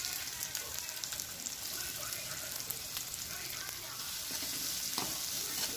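Chopped onions sizzling in hot oil in a kadai, stirred with a spatula. The sizzle starts abruptly as the onions hit the oil and then holds steady, with faint spatula ticks against the pan.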